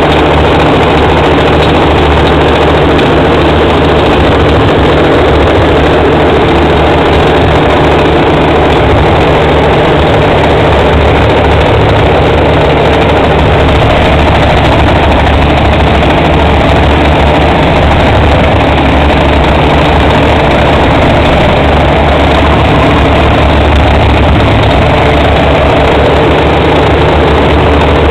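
Bulldozer's diesel engine running loud and steady.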